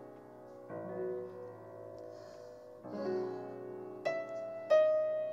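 Piano accompaniment playing alone: sustained chords struck about two seconds apart, then two higher single notes near the end, the second the loudest.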